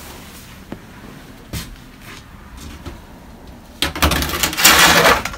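Black plastic trash bag rustling and crinkling as loose old insulation is cleared into it. The rustle starts abruptly about four seconds in and goes on, uneven, for about a second and a half; before that there are only a few faint handling clicks.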